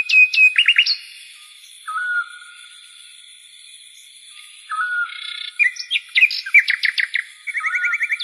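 Bird-like chirping calls in quick runs of falling notes, a short whistled note repeated every few seconds and a fast trill near the end, over a steady high insect drone.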